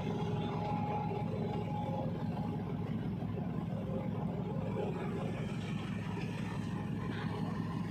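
Large passenger ferry's engines running with a steady low drone as the ship moves slowly alongside the pier to berth.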